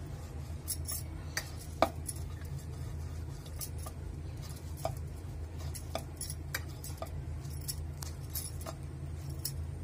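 Aluminium plates clinking and knocking as they are handled and set down on the counter, with a sharp clink about two seconds in the loudest, over a steady low hum.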